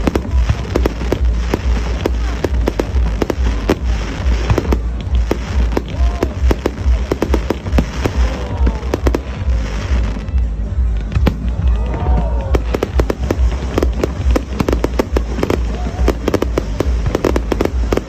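Fireworks going off in quick succession: dense crackling and popping with many sharp bangs over a heavy low rumble, and a few brief pitched glides in the middle.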